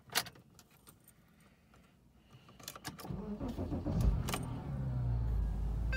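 Ignition key clicking and jingling in a Porsche Cayman, then the engine cranks and catches about four seconds in and settles into a steady idle.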